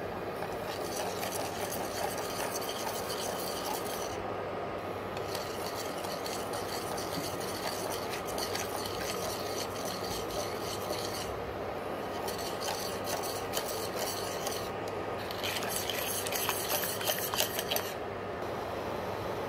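A metal utensil scraping and stirring against the bottom of a metal pot of frothy pomegranate juice, in four long stretches with short pauses between them. A steady background hiss runs underneath.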